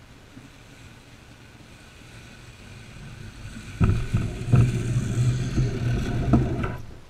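Meccano model pickup truck's drive motor and gearing running as the truck rolls toward and past the camera: a low, steady hum that grows louder as it approaches, loudest from about four seconds in with several knocks and rattles, then fading near the end.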